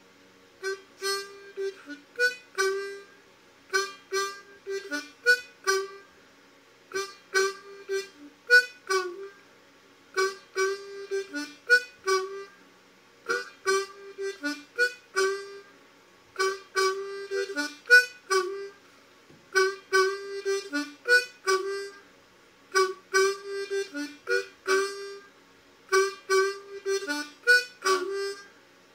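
Ten-hole diatonic harmonica in C played solo, with short rhythmic chords in a two-beat pattern. It comes in phrases with brief pauses between them, starting about half a second in.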